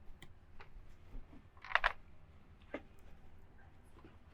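A few faint, scattered light clicks of a small ratchet and 8mm socket working the long air filter housing screws loose.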